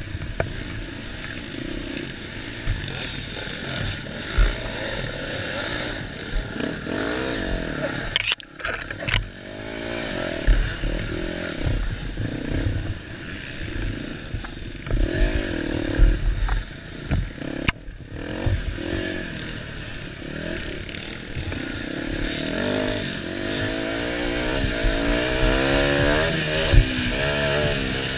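KTM 250 EXC two-stroke dirt bike engine under hard throttle, its pitch rising and falling again and again as the rider revs and shifts over rough trail, with two brief sharp cuts in the engine note about a third and two thirds of the way through. Wind rush and scattered knocks from the bike hitting bumps sound over the engine.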